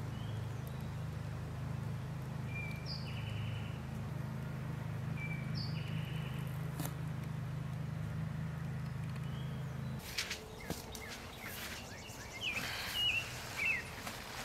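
Small birds chirping outdoors, a short phrase repeated every few seconds, over a steady low hum. About ten seconds in the hum cuts off, and leaf litter rustles and crunches as a person moves on hands and knees under cedar branches, with more bird calls.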